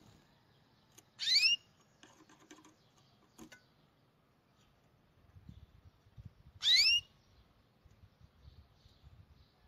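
Two short, loud rising chirps about five and a half seconds apart, each a quick upward sweep in pitch. Faint clicks and rustling fall between them.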